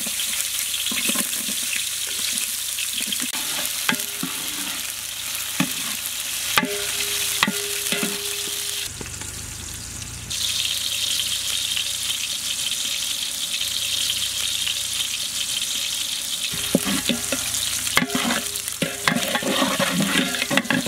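Sliced onions sizzling in hot oil in a large aluminium pot, stirred with a metal ladle that scrapes and clinks against the pot. The sizzle dips for about a second near the middle.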